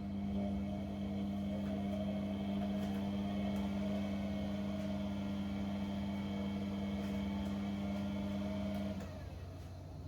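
Dishwasher pump motor switching on and humming steadily for about nine seconds, then cutting off, over the machine's lower constant hum.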